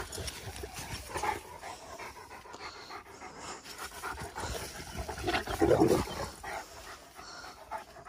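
Turkish shepherd dog panting, with one louder, lower sound about five and a half seconds in.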